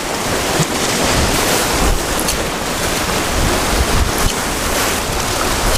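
Ocean surf washing steadily against a rocky shoreline, with wind rumbling on the microphone.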